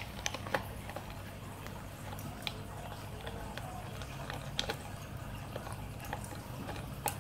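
A dog gnawing a Petstages Crunchcore chew bone, a rubber bone with a plastic bottle inside: scattered crunches and clicks of teeth on the plastic, over a steady low hum.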